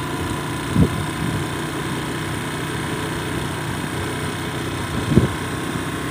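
Motor scooter riding at a steady speed: the engine running under a steady rush of wind on the microphone. Two brief low thumps, about a second in and again about five seconds in.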